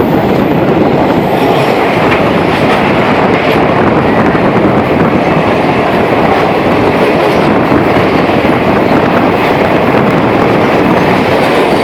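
Fast-flowing floodwater rushing, a loud, steady roar with no breaks.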